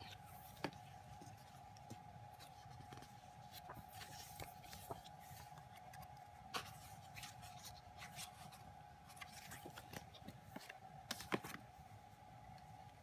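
Faint rustling and soft ticks of paper pages being flipped and handled in an album booklet, a few sharper ticks standing out, over a steady faint hum.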